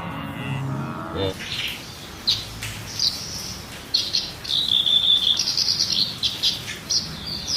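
Animal chirping: a run of short, high-pitched chirps, with one note held for about a second near the middle, over a steady hiss. The chirps start about a second in, after the previous sound ends.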